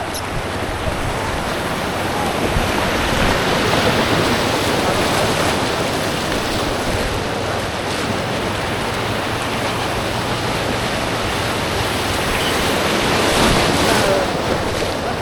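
Steady rush of creek rapids around a two-person inflatable kayak going down a drop, growing louder about three seconds in and again near the end.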